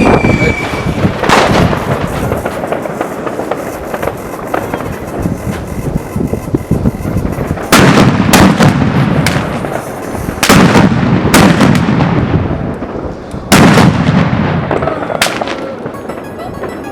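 Five Black Thunder fireworks going off: a single bang about a second in, then a run of heavy, booming reports in quick succession over the second half, with crackling between them.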